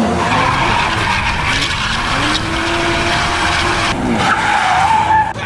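A car engine revving, its pitch rising and falling, over a loud tyre-skid hiss that eases off about four seconds in.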